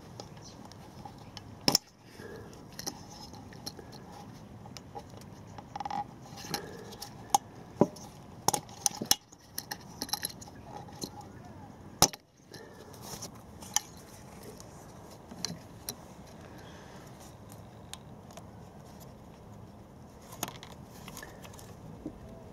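Irregular clicks, clacks and light rattles of spark plug leads being pulled off the plugs and handled. A few sharper knocks stand out, the loudest shortly after the start and about halfway through.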